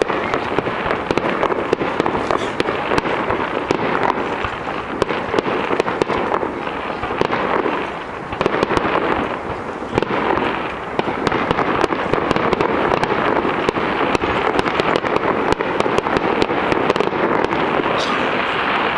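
Fireworks display: aerial shells bursting with a dense, continuous crackle of many small pops. The crackle eases briefly about eight seconds in and again near eleven seconds.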